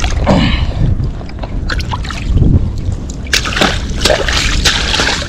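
Hand and forearm sloshing and splashing in shallow mudflat water while groping for a mud crab at its burrow. The splashes are irregular and thickest in the last two seconds, over a steady low rumble.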